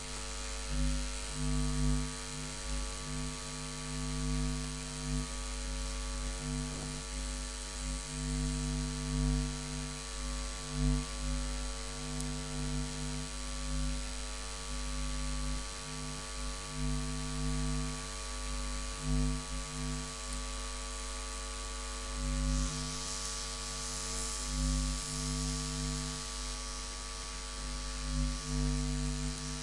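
Electrical noise interference: a steady mains hum and buzz over hiss, with many fixed tones. The buzz swells and cuts out irregularly every second or so, and a brighter hiss comes in for a few seconds near the end.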